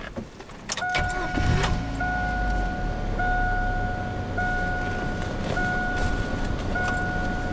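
Truck engine cranked and catching about a second in, then idling with a low rumble. Over it, the truck's dashboard warning chime repeats evenly, about once every 1.2 seconds.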